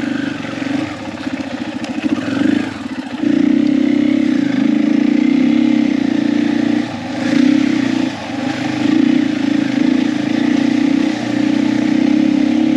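KTM 500 single-cylinder dirt bike engine running under load while ridden slowly over rocks and gravel. The throttle opens and closes, and the engine note drops briefly several times.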